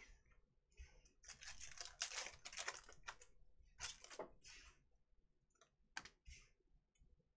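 Panini Prizm card pack wrapper crinkling and tearing open, with soft clicks of the cards being handled. The rustle comes in bursts over the first few seconds, with a few short clicks later on.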